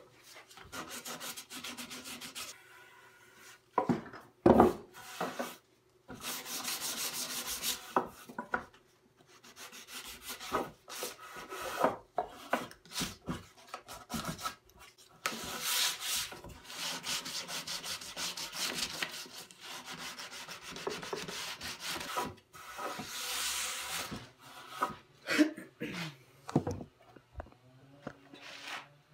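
A hand rubbing along a pine board in repeated stretches of scratchy strokes, with a few wooden knocks as the board is handled, the loudest about four and a half seconds in.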